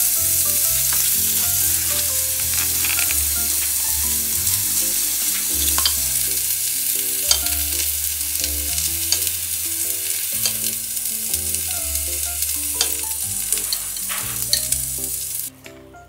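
Food frying in a hot pan: a steady sizzle with scattered pops, cutting in and cutting off abruptly near the end.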